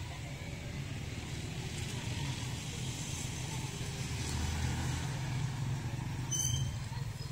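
Water from a plastic watering can's rose spattering onto seedlings in nursery bags, over a steady low rumble. A short high chirp sounds near the end.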